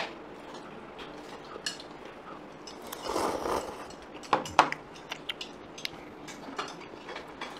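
Cutlery clinking against bowls and dishes during a meal: scattered light clicks, the loudest pair a little after four seconds in, with a short rush of noise at about three seconds.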